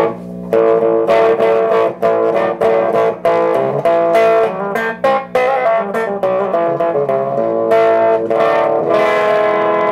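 Electric guitar strummed in a run of chords, played through a 1960 General Electric Musaphonic clock radio's phono amplifier and small speaker, with a low hum underneath.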